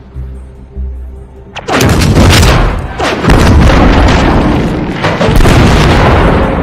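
Animated-series explosion sound effect: low pulsing music gives way about two seconds in to a sudden, very loud, long blast as the orbital weapon satellite explodes, with fresh blasts about three and a half and five seconds in.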